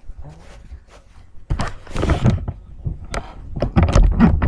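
Handling noise from the camera being picked up and moved: rustling, with a string of knocks and a few heavy thumps around four seconds in.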